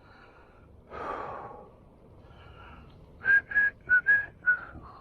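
A person whistling five short, clipped notes at nearly the same pitch, preceded about a second in by a breathy exhale.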